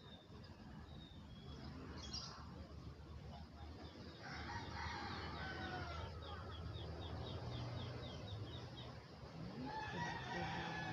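A rooster crowing about four seconds in, with small birds chirping in a fast run of short high notes, and another fowl call near the end.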